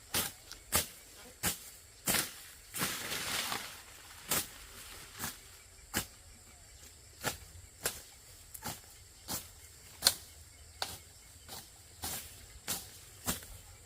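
A series of sharp clicks and taps at uneven intervals, about one a second, with a short rustling noise about three seconds in.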